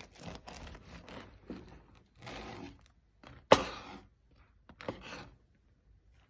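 Miyabi serrated bread knife sawing through the crusty crust of a sourdough loaf in a run of rough scraping strokes. A single sharp knock just past halfway, then one short scrape and quiet.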